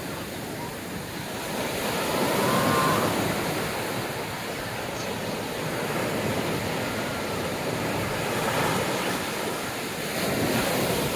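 Ocean surf breaking on a beach, with wind buffeting the microphone. The wash swells louder about three seconds in and again near the end.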